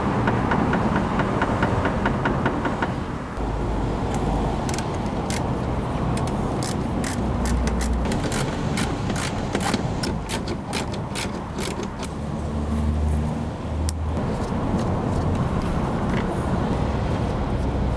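BMW car with a steady running sound under a series of sharp, irregular knocks, thickest in the middle: the knock of a worn, loose steering rack.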